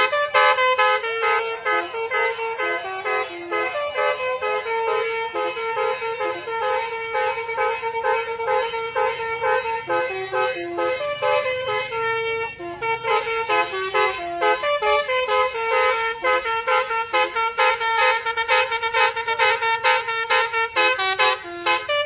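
A telolet Basuri horn from a miniature bus's sound module playing a tune: a rapid run of horn-like notes that changes pitch several times a second.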